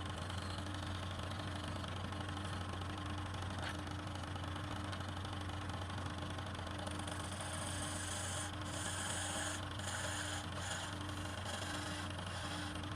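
Wood lathe running with a steady motor hum under a constant hiss. From about seven seconds in, a high-pitched scraping hiss comes and goes in short stretches, like a turning tool cutting the spinning wood.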